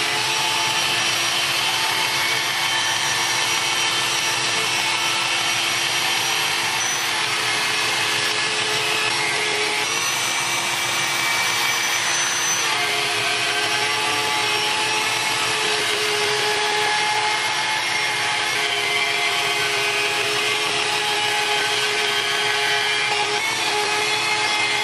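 CNC router running a 1/4-inch up-cut bit through wood, a steady machining whine with a few steady tones that shift slightly in pitch partway through.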